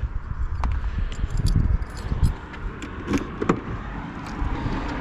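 Car handling noise: a few sharp knocks and clicks over a low rumble, then the car's engine and road noise building near the end as it drives off.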